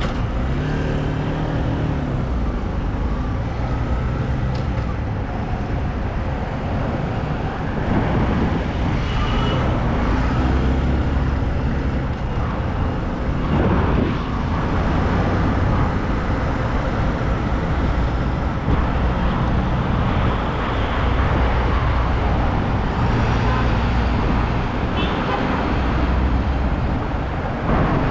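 Motorcycle engine running as the bike pulls away and rides through city traffic, its pitch rising and falling several times with the throttle, over a steady rush of road and traffic noise.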